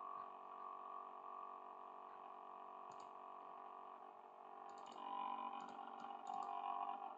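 Computer mouse clicking, one click about three seconds in and several more in quick succession near the end, over a steady background hum.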